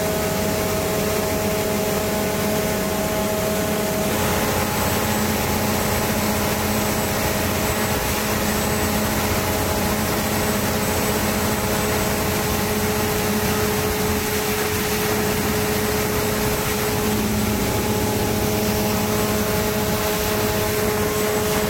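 A ship's emergency diesel generator running steadily under load during its on-load test: a loud, constant engine drone with a steady whine over it.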